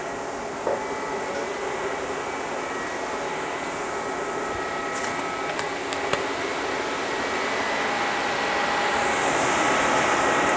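Both electric radiator cooling fans of a K24-swapped Honda CR-V running steadily, switched on by the KPro ECU's forced-fan setting: a steady rush of air with a faint hum, growing slightly louder toward the end.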